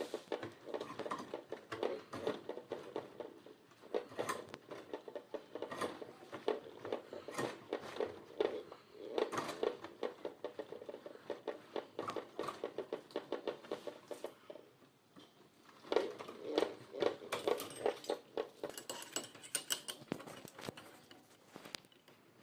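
Irregular clicking, tapping and clattering of hard objects being handled, with a brief lull about two-thirds of the way through.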